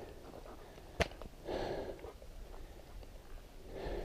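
A hiker's breathing close to the microphone, two short breaths or sniffs, one about a second and a half in and one near the end, after a single sharp click about a second in.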